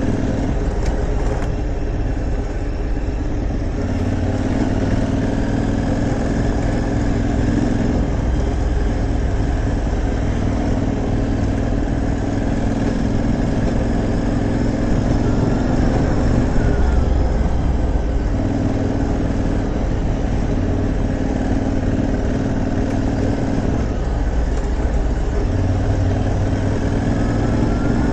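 Aprilia Tuareg 660's parallel-twin engine running steadily under way, its note stepping up and down every few seconds with the throttle and gears.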